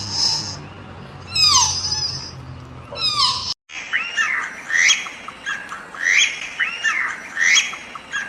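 Birds calling: three sharp calls sweeping steeply down in pitch, then after an abrupt cut a different set of short, arched calls repeating at an even pace.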